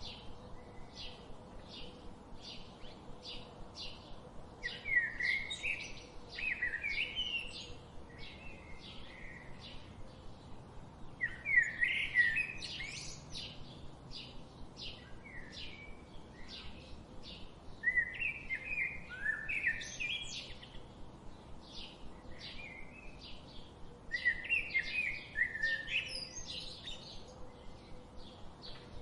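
Forest birds singing: a steady run of short, high chirps, with a louder warbling song phrase about every six seconds.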